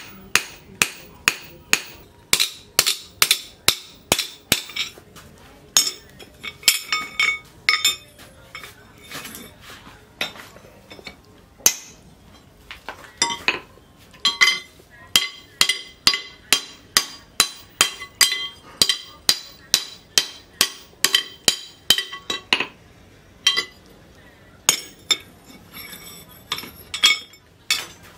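Hand hammer striking a leaf-spring steel axe head on a steel post anvil: quick, regular metallic blows, about two to three a second, each ringing briefly. The blows come in runs with a few short pauses.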